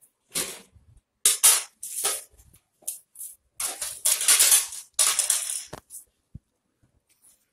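A string of short rough scraping and clattering strokes, irregularly spaced, with a single brief low knock near the end.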